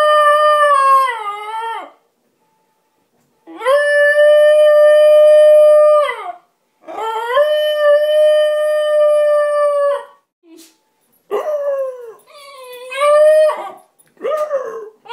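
Basenji howling. It holds two long, steady notes of about three seconds each, with pauses between them; the first and last howls bend and drop in pitch, and near the end come shorter, wavering howls that rise and fall.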